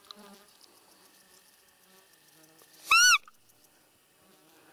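One short, loud whistled squeak from a hand-held roe deer call, about three seconds in, rising and then falling in pitch: an imitation of a roe deer's fiep call, blown to lure roe deer in before the rut.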